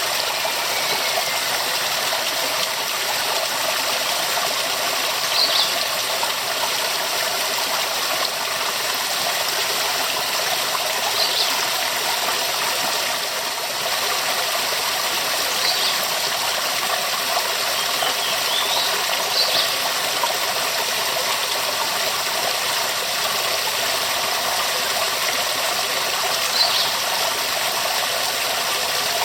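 Waterfall rushing with a steady, even roar of falling water. A few brief high chirps sound every several seconds over it.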